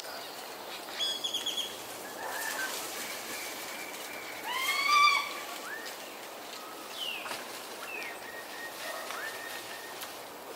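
High animal calls: a quick chattering trill about a second in, a louder call rising in pitch just before the middle, then several short falling whistles.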